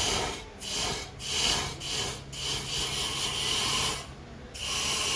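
Short bursts of hissing spray, about six in a row, as a car radiator is flushed out to clear the dirt from it, with a faint steady low hum underneath.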